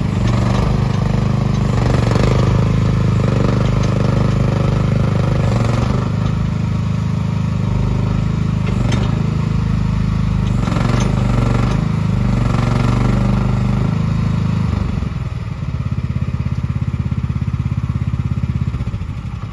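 MachPro MP15 mini excavator's small diesel engine running under hydraulic load while the boom and arm are worked, with scattered knocks and clatter. About fifteen seconds in it settles into a steadier, evenly pulsing run with less clatter.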